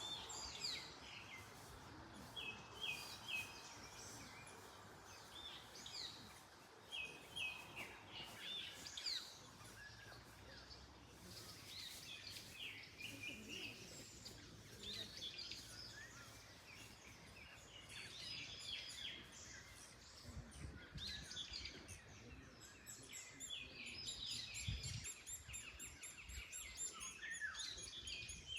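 Several songbirds chirping and singing in repeated short phrases, over a steady rustle of wind in the trees. Low gusts rumble now and then in the second half.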